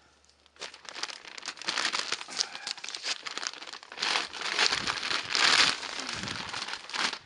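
Crinkling and rustling of a feed sack being handled, starting about half a second in and loudest around four to six seconds in.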